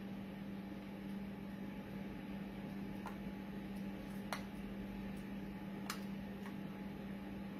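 A few faint, sharp plastic clicks, spread over the second half, as a battery module is pressed and worked into a Petsafe dog-collar receiver. A steady low hum runs underneath.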